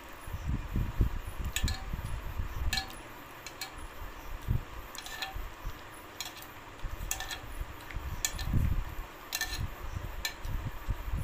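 A stainless steel bowl clinks lightly about once a second as fingers scoop noodles from it, each touch leaving a short metallic ring, with soft eating noises underneath.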